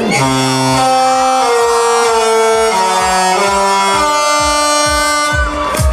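Music with long, held reedy notes moving through a slow melody over a steady beat.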